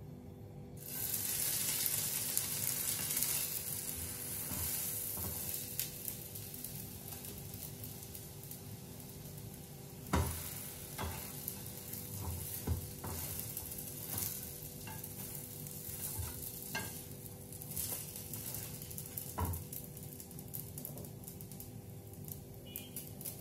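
An egg frying in hot oil in a pan: the sizzle jumps up about a second in and is strongest for a few seconds, then settles lower. Scattered knocks and scrapes of a utensil against the pan.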